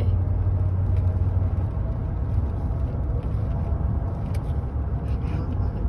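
Steady low rumble of road and engine noise inside a moving Chevrolet's cabin.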